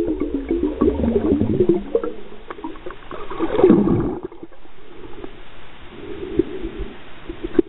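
Muffled water gurgling and sloshing, recorded by a submerged camera. The sound is irregular and bubbly, with small clicks, and it eases briefly about halfway through.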